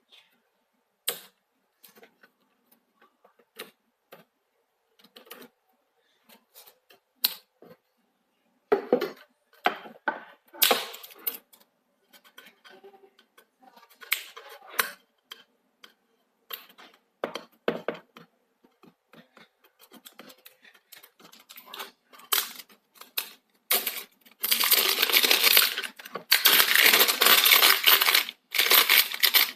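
Unboxing handling sounds of a table tennis blade and its packaging: scattered clicks, taps and knocks, then, from about three-quarters of the way in, long loud stretches of rustling packaging noise.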